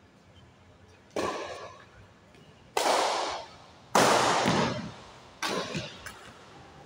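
Badminton rackets striking a shuttlecock in a rally: four sharp hits about a second to a second and a half apart, each echoing briefly in a large hall, the third one loudest.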